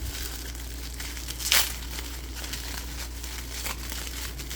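Bubble wrap crinkling as hands unwrap a small figurine, with one brief, louder crackle about a second and a half in, over a low steady hum.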